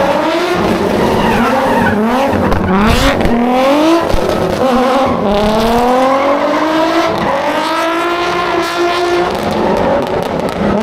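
Drift car engine revving hard, its pitch rising and falling again and again, with tyres squealing as the car slides.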